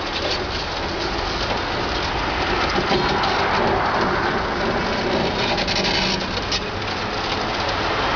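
A high-reach demolition excavator's jaws breaking up the top of a concrete wall, with broken rubble and dust falling down the wall in a steady hiss scattered with small knocks.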